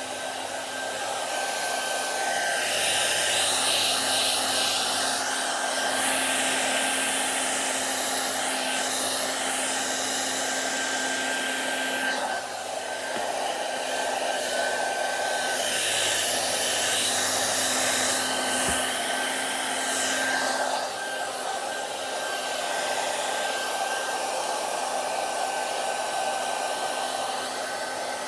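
Electric hair dryer running continuously with a steady whine over its airflow noise. The rush of air swells and fades as the dryer is moved, with two long louder stretches, one in the first half and one about two-thirds of the way through.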